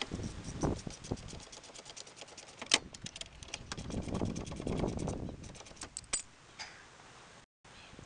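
Ratchet wrench clicking rapidly and evenly as a nut is turned on a motorcycle frame, sped up, with a few louder metal clinks among the clicks. The clicking stops about six seconds in, and the sound drops out briefly near the end.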